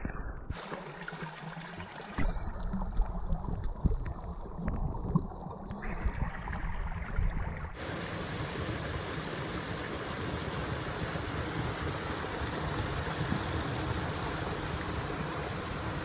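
Small stream running: uneven water sound with a few knocks in the first half, then a steady rushing hiss from about eight seconds in.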